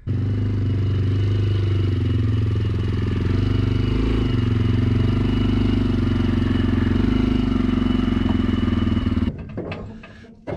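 Small Polaris ATV engine running steadily at low speed as the quad is ridden up, then shut off about nine seconds in; a few knocks follow.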